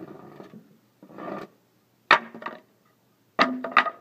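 Small wooden planks dropped and clattering together: a scraping rustle, then sharp hollow knocks about two seconds in and a louder pair near the end, each ringing briefly.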